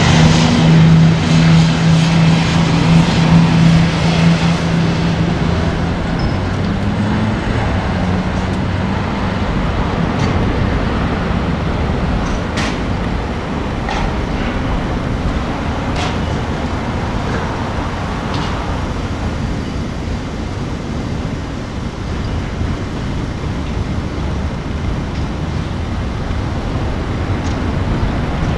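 A passing motor's steady hum fades away over the first six seconds. It leaves a steady rushing outdoor background, like wind and distant traffic, broken by a few sharp clicks.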